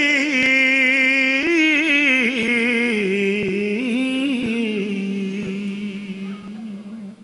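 A man's solo voice singing a noha through a microphone, holding one long ornamented vowel that wavers and steps slowly down in pitch, then fades out near the end.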